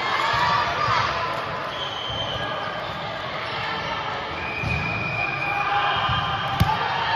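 Indoor volleyball play in a sports hall: short high squeaks of shoes on the court floor and dull thuds of feet, with one sharp hit of the ball near the end.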